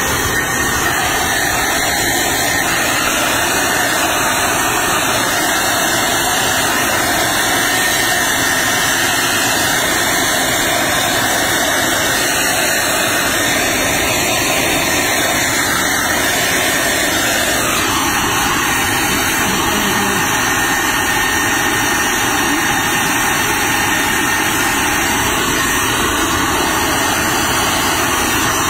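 Electric hair dryer blowing steadily with a constant airy hiss as it dries a baby monkey's fur. The sound dulls slightly about two-thirds of the way through.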